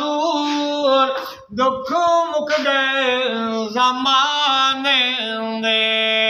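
An elderly man singing a naat unaccompanied, in long held notes with sliding ornaments; he breaks off briefly for breath about one and a half seconds in, and holds one long steady note near the end.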